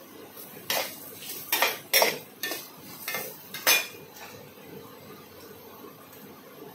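Kitchen utensils and steel dishes being handled: about six sharp clinks and knocks over the first four seconds, then the clatter stops.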